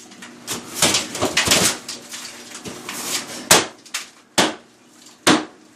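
Hand tool knocking apart an interior wall: a run of rough bangs and scraping in the first couple of seconds, then three sharp separate blows in the second half.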